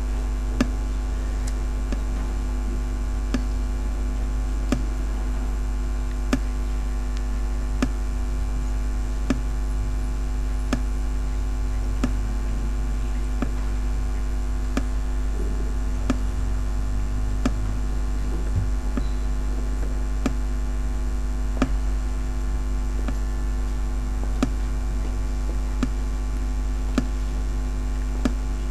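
Steady low electrical hum with faint clicks about every one and a half seconds.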